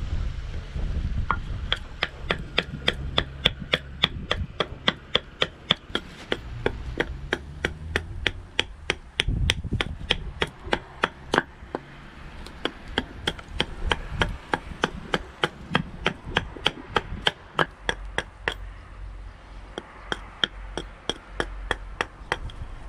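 A large knife chopping into a birch spoon blank held upright on a wooden block, roughing out its shape: quick, even knocks, about three to four a second. The strokes grow fewer and lighter near the end.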